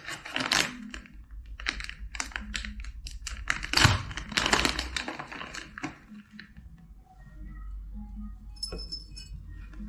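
Rustling and quick clicking taps as a packet of loose green tea is opened and the leaves are handled into a cup. The handling is dense for about six seconds, then gives way to fainter sounds with a single click near the end.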